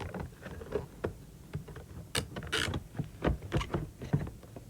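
Items in a perfume gift-set box being handled: a string of light knocks and clicks, with a short rustle of packaging about two and a half seconds in.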